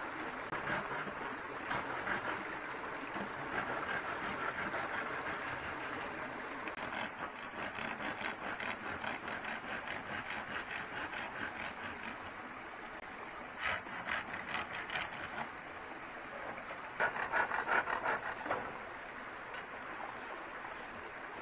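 Steady rush of running water, with runs of rapid clicking and scraping over it in the middle and again near the end.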